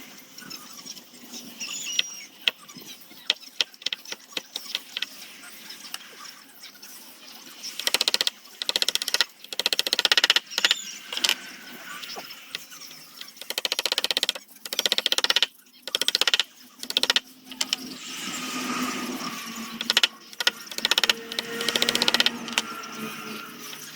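Wood being worked with hand tools: irregular sharp clicks and taps, with several bursts of scraping on the wood about a third of the way in, in the middle and near the end.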